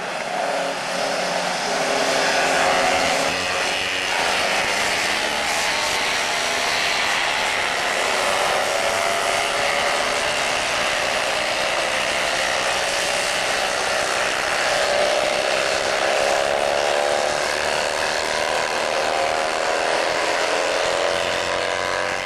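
A pack of small historic single-seater racing cars going by together, many engines running at high revs at once, their tones sliding up and down as the cars pass and change speed.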